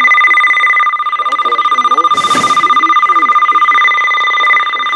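Weather-radio alert tone: a steady, high-pitched electronic tone holding over a voice reading the broadcast. A short burst of static comes about two seconds in.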